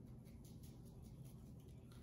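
Faint, quick, even shaking of a spice shaker: seasoned pepper sprinkling onto raw mustard-coated skirt steak, over a low steady room hum.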